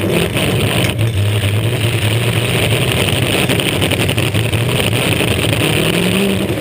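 Demolition derby car's engine running and revving, picked up by a roof-mounted camera, with a steady rushing hiss over it and a brief knock about a second in.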